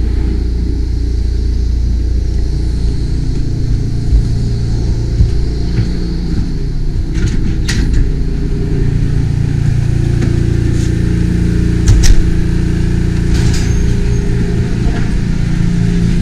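A power washer's gas engine running steadily at a loud, constant drone, with a few sharp knocks along the way.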